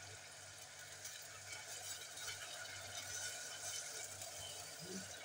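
Onions frying in oil in a steel pot, a faint sizzle over a steady low hum.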